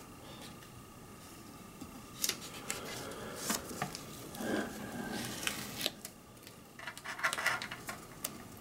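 A watercolour brush at work: scattered light clicks and short scratchy strokes as it picks up paint and lays it on, more of them near the end.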